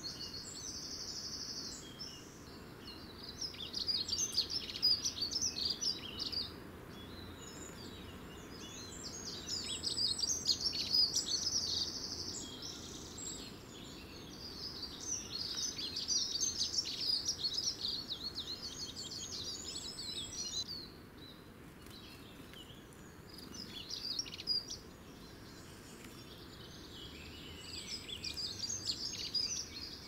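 Small songbirds singing in about five separate phrases of rapid, high-pitched notes and trills, each lasting a few seconds with short pauses between, over faint steady background noise.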